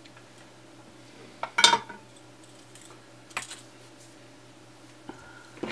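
A few sharp metallic clinks and knocks as a soldering iron is put back in its stand and small tools are handled on the workbench. The loudest comes about one and a half seconds in and rings briefly.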